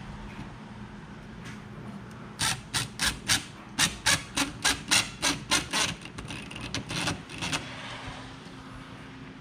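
About a dozen quick rasping strokes on the wall, two to three a second for about five seconds, starting a couple of seconds in.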